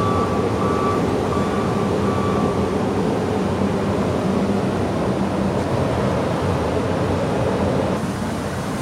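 Heavy diesel machinery running steadily and loudly, most likely the Wirtgen W 210i cold milling machine. A faint high tone repeats about twice a second during the first few seconds, and the noise eases slightly near the end.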